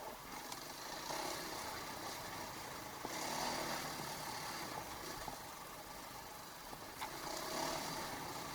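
KTM 500 EXC enduro bike's single-cylinder four-stroke engine running at low revs. It swells in level a few times: about a second in, around three seconds in, and near the end.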